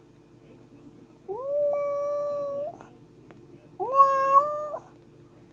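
Cat meowing: two long drawn-out meows about a second apart, each rising at the start and then held at a steady pitch.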